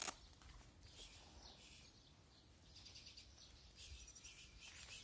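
Faint crunching of three cats chewing dry kibble, heard as a sharp click at the start and short crackly bursts every second or so.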